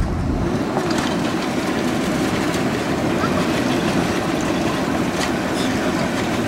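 Airliner rolling out on the runway just after touchdown, heard from inside the cabin: a steady, loud roar of jet engines and wheels on the runway. A brief thud comes right at the start.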